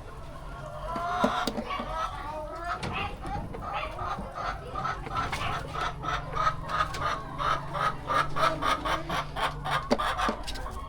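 Laying hens clucking, the calls coming faster until they run as quick, even clucks about four a second through the second half.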